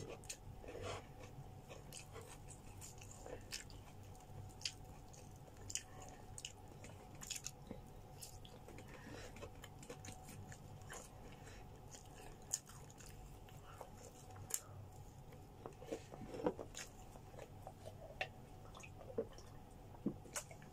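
Close-miked eating sounds of grilled chicken being chewed: scattered soft smacks and short clicks, over a faint steady hum.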